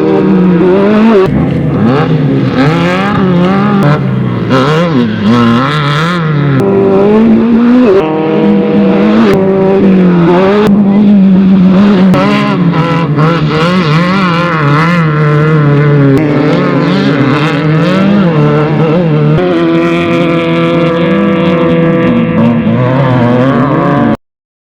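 Off-road race vehicle engines revving hard, their pitch climbing and dropping as they race past, with several engines overlapping. The sound cuts off suddenly near the end.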